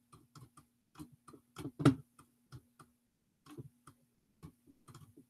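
A pen stylus tapping and clicking on a tablet or screen in quick, irregular strokes while handwriting, one stroke louder about two seconds in, over a faint steady hum.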